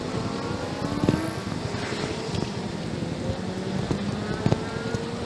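Street traffic and wind noise picked up by an action camera worn on a riding cyclist's chest, with vehicle engines rising in pitch several times. Two sharp knocks stand out, about a second in and near the end.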